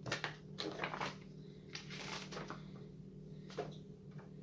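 Pages of a paper instruction booklet being turned and handled: a series of short rustles, most in the first couple of seconds, over a steady low hum.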